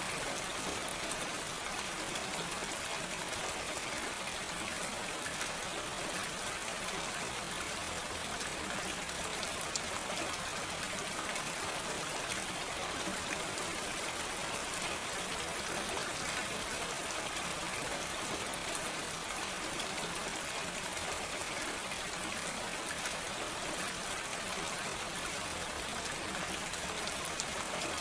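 Steady gentle rain falling, an even hiss of many drops with no thunder.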